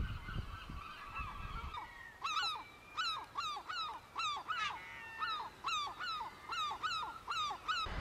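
Herring gulls calling: a few faint calls at first, then from about two seconds in a rapid series of about a dozen loud, evenly repeated yelping notes, the gull's long call.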